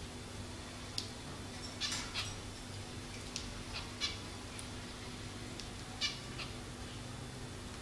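Pet finches giving short, sharp calls, a cluster about two seconds in and another about six seconds in, with a few light single clicks between.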